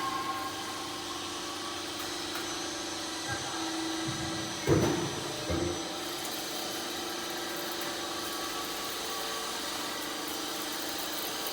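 Half-round rain gutter roll forming machine running: a steady motor hum with a held tone, broken by two short knocks about five seconds in.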